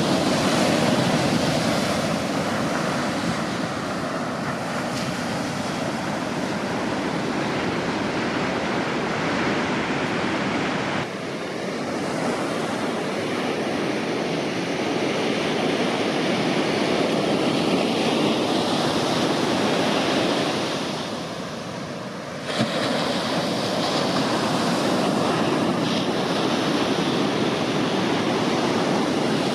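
Ocean surf: waves breaking and washing up a sandy beach in a continuous rush. The level dips briefly about eleven seconds in and again around twenty-one seconds, returning suddenly at about twenty-two seconds.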